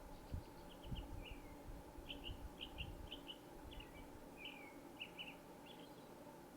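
Small birds chirping faintly: quick clusters of short, high chirps repeating every half second or so, some ending in a short falling note, over a steady low hum.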